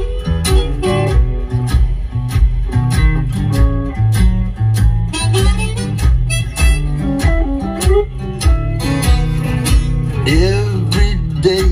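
Guitar music with a steady beat and heavy bass, played through a car's upgraded audio system: a Pioneer AVH-Z5250BT head unit driving Ground Zero 3-way speakers and a Venom 12-inch subwoofer, heard in the cabin.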